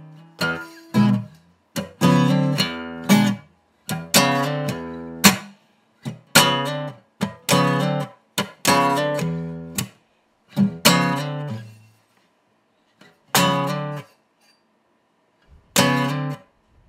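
Acoustic guitar playing short struck chords about once a second, each cut off by muting, with silent gaps between them. Near the end the gaps widen, leaving two lone chords.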